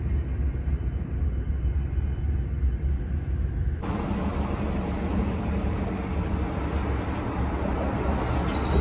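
Steady low rumble of vehicles outdoors. About four seconds in the sound cuts abruptly to louder, fuller road traffic noise.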